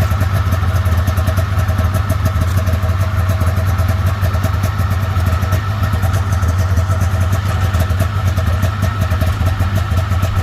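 A motor engine running steadily at an even speed, with a low hum and a rapid, even pulse.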